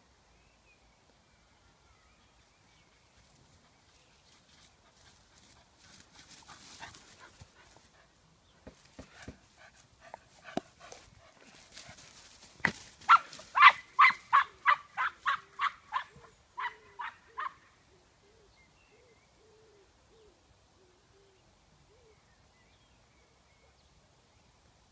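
English cocker spaniel barking in a quick run of about a dozen short barks, about three a second, after a stretch of rustling through long grass.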